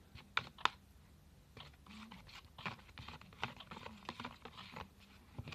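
Homemade slime being squeezed and kneaded by hand, giving wet, sticky clicks and small pops, with two sharper clicks under a second in.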